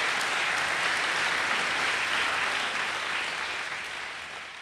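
Large theatre audience applauding, a dense steady clapping that fades away near the end.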